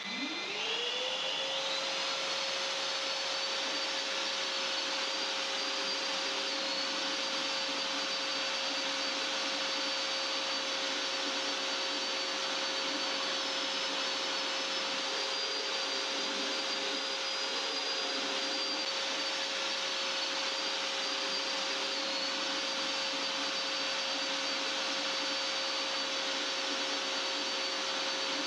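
Electric drill with a mixing paddle stirring self-levelling compound in a plastic bucket. The motor spins up, rising in pitch over the first second, then runs steadily at full speed.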